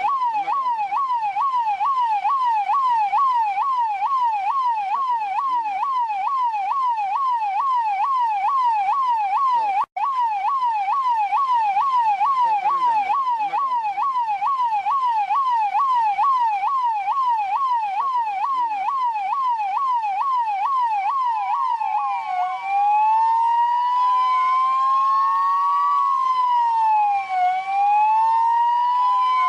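Police siren in a fast yelp, its pitch rising and falling about three times a second, with a split-second break about ten seconds in. A little after twenty seconds it changes to a slower wail, two overlapping tones sweeping up and down every few seconds.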